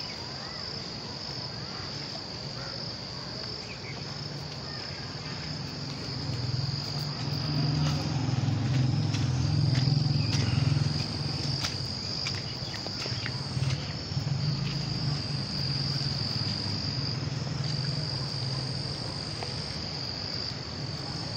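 Insects singing outdoors in a steady, high-pitched drone. Beneath it runs a low rumble that grows louder about six seconds in, with scattered light clicks.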